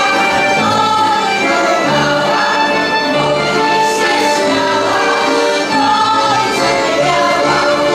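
Group of women singing a Polish folk song with live accordion and fiddle accompaniment over a steady, recurring bass pattern.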